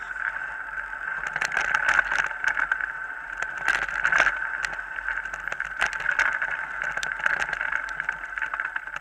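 Mountain bike rattling and clattering as it rolls over a rough dirt forest track, many small knocks over a steady whine.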